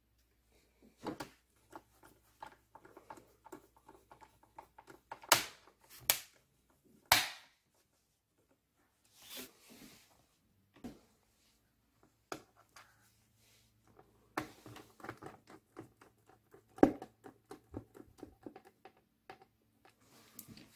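Small plastic clicks, taps and rapid ticking from hands working on a laptop's plastic back cover as it is put back on, with a few sharper knocks.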